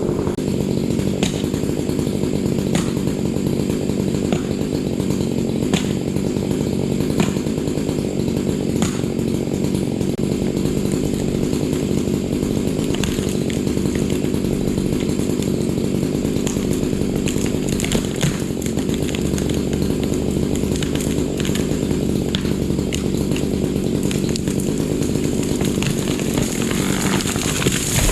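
Chainsaw running steadily at full throttle, cutting through the base of a tree trunk in a felling cut.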